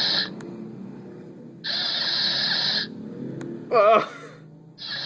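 Lego NXT Mindstorms robot's electric drive motors whirring in short bursts of about a second each as it is driven in steps. About four seconds in comes a single loud bird call with a wavering pitch, crow-like.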